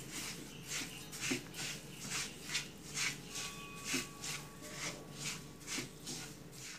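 Silicone spatula stirring a thick paste of milk powder, sugar and milk in a nonstick frying pan: a rhythmic scraping swish of about two to three strokes a second.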